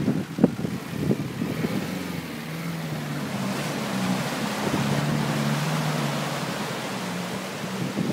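A 4x4 off-roader's engine pulling steadily under load through deep muddy water, its note wavering slightly, with water splashing. A few knocks of wind or bumps on the microphone in the first second or so.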